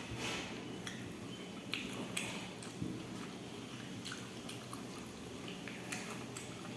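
A person chewing a mouthful of rice and curry, with irregular wet smacks and small clicks of the mouth.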